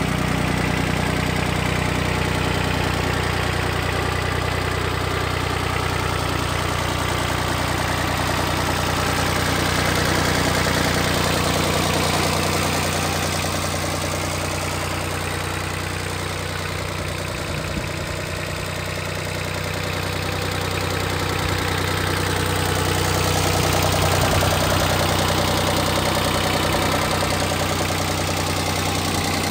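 Iseki 155 compact tractor's diesel engine running steadily, its level swelling slightly and falling back twice.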